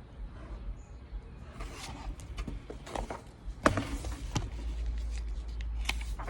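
Handling noise, most likely from the picture book being held and its pages turned. Soft paper rustling with several sharp clicks and taps, the loudest about three and a half seconds in.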